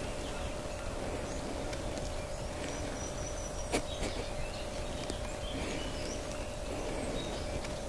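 Outdoor woodland ambience with short, high bird chirps and a faint steady hum, broken by a single sharp click about four seconds in.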